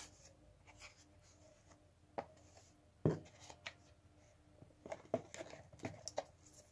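Hard plastic steam cleaner housing parts being handled and fitted together: scattered light clicks and knocks, the loudest about three seconds in, then a run of small clicks near the end.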